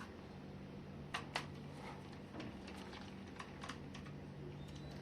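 A few faint, sharp clicks and taps of a screwdriver and fingers on a laptop's plastic case as its underside screws are being taken out, over a steady low hum.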